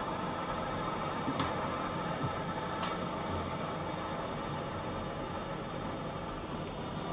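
Steady machinery hum and hiss inside a Mir deep-sea submersible, with a sharp click about a second and a half in and another about three seconds in.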